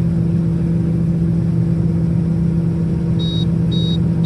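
Combine's diesel engine running steadily at a constant pitch, with a strong hum. Near the end come three short high electronic beeps about half a second apart.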